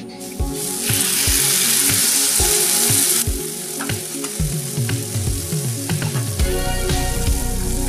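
Whole marinated fish sizzling loudly as it is laid on a hot oiled flat-top griddle. The hiss drops sharply about three seconds in, then carries on more quietly.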